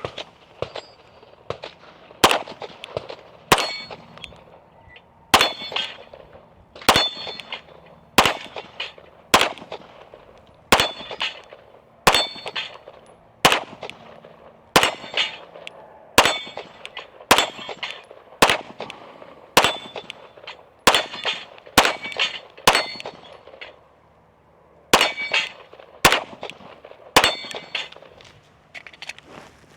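Staccato P 9mm pistol fired in a steady string of about twenty shots, roughly one a second, each hit answered by the clang and brief ring of steel plates on a dueling tree. There is a short pause in the firing about three-quarters of the way through.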